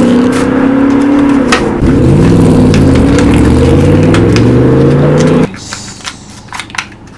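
Car engine sound effect revving, its pitch rising and falling, that cuts off abruptly about five and a half seconds in, leaving a few faint clicks.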